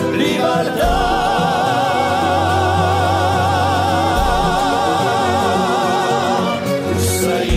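Music with a solo voice holding one long note with wide vibrato from about a second in, over sustained low accompaniment notes, with a brief hiss near the end.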